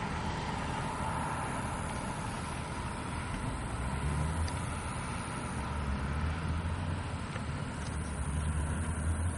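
Yellow self-propelled rail car running along the track, a steady low rumble throughout.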